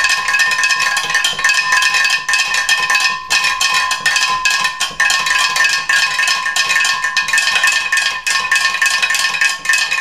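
A spoon stirred fast inside a glass jug of mojito, clinking rapidly against the glass, which rings with a steady high tone under the clinks. The stirring is to dissolve the sugar.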